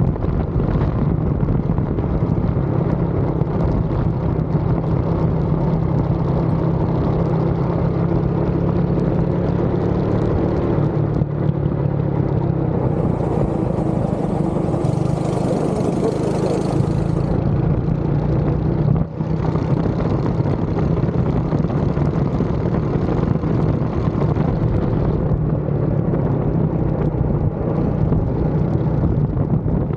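Go-kart's small petrol engine running hard under load, heard from the driver's seat, its steady note shifting a little in pitch through the corners. A hiss joins in for a few seconds about halfway, and the engine briefly drops away just after.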